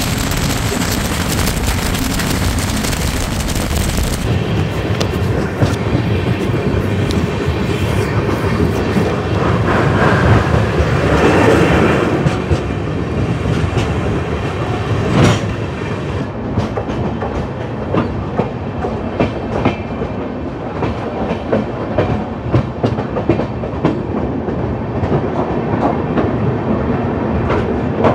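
Passenger train running on the track: a steady rumble, with the wheels clacking over rail joints in a regular rhythm that grows more distinct in the second half.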